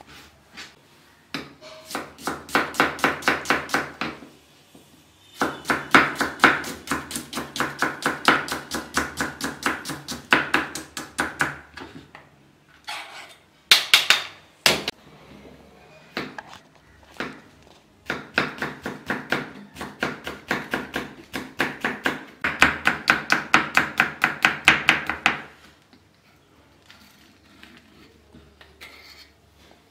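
Kitchen knife chopping red onion and green chillies on a wooden cutting board, in several fast runs of about six strokes a second with short pauses between them.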